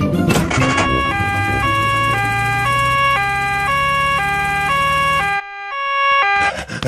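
Cartoon two-tone emergency siren, a high note and a low note alternating about every half second, over a steady engine hum. The hum cuts off suddenly near the end while the siren sounds a moment longer.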